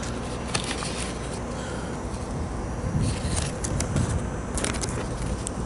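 A sheet of paper is handled close to the microphone: short rustles and two soft bumps about three and four seconds in, over a steady low rumble of background noise.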